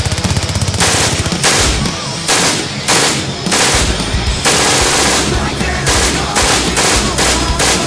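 Bursts of rapid machine-gun fire laid over music.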